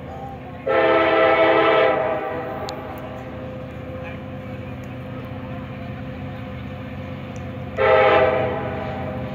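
Diesel locomotive air horn (CSX SD70AC) sounding two loud chord blasts: a long one about a second in and a shorter one near the end. Between them the locomotive's engine and the train rumble steadily as it approaches.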